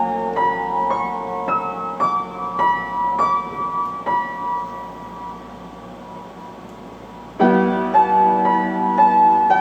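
Solo piano playing a slow melody, single notes struck one after another over sustained lower notes. The notes die away to a quiet pause, and a loud new chord comes in near the end.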